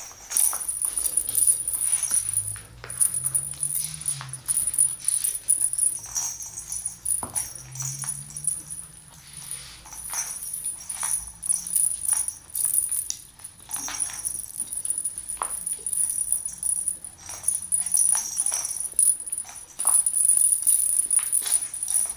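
Small bells on a cat toy jingling and rattling in quick, irregular bursts as kittens bat at it and jump for it, with light clicks and taps mixed in.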